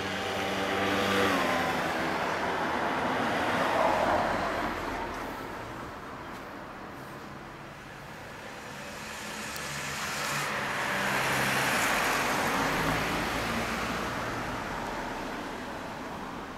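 Road traffic: a vehicle goes by in the first few seconds, its engine note rising as it passes, and a second one swells and fades in the second half.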